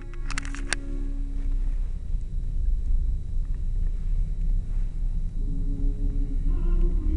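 Low rumbling noise inside a car, with a few sharp clicks just under a second in. Music plays faintly at the start, fades out, and comes back near the end.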